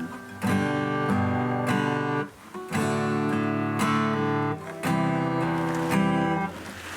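Acoustic guitar, freshly restrung and tuned, being played as a check that it holds its tune: a run of strummed chords that ring out, changing every half second to a second, dying away near the end.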